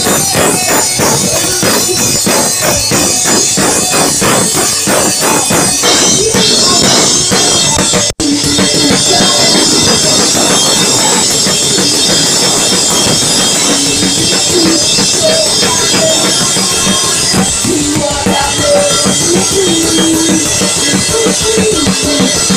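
A pop-punk band playing live and loud, with the drum kit close and prominent and electric guitars over it. The drums keep a fast, even beat for the first few seconds. The sound cuts out for an instant about eight seconds in, then the band carries on.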